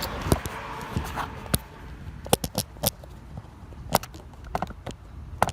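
Irregular sharp clicks and knocks with some scraping, about a dozen, in clusters, like handling and moving around.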